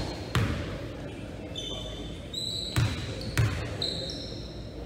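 Basketball bounced on a hardwood gym floor three times, a deep thump each, as a player dribbles at the free-throw line before shooting. Short high squeaks of sneakers on the floor come in between.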